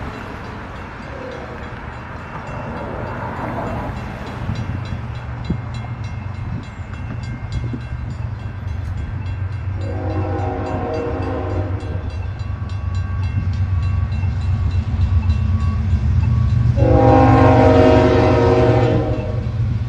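Union Pacific diesel freight locomotives rumbling steadily and growing louder as the train approaches a grade crossing, with two blasts of the locomotive horn, about ten seconds in and again near the end, the second louder. A regular fast ticking, typical of a crossing signal bell, runs through the first part.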